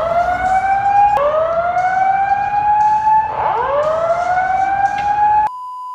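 Building emergency alarm sounding a whoop tone: loud upward-sweeping wails that repeat about every two seconds, each ending abruptly. Near the end, a steady bleep tone cuts in over everything.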